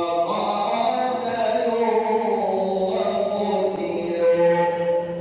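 A male reciter chanting the Quran in the melodic mujawwad (tajweed) style, with long held notes that bend and ornament in pitch. The phrase starts to trail off near the end.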